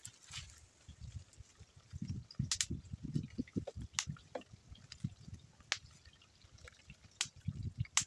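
Small fire heating a pot of melting pitch, crackling and popping: scattered sharp pops about a second or two apart over low, irregular rumbling thumps.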